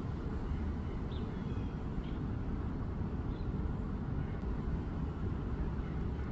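Steady low outdoor background rumble, with a few faint short chirps about one, two and three and a half seconds in.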